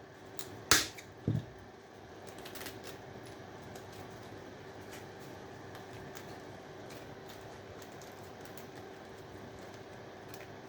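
Hand-stripping of scrap electrical parts: a sharp click just under a second in and a softer knock half a second later, then a few scattered light ticks over a faint steady hum.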